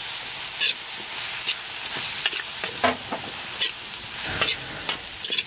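Lemongrass, shallot and galangal sizzling in a hot steel wok as a metal ladle stirs them, with irregular scrapes of the ladle against the pan.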